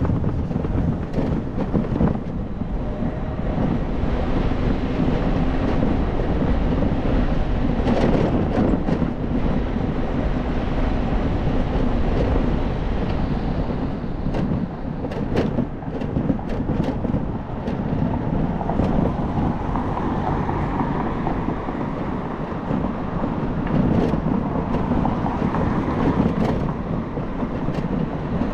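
Wind rushing over a helmet-mounted camera's microphone, with road and tyre noise from a moving electric scooter. Scattered short clicks and knocks come mostly in clusters about halfway through and again near the end.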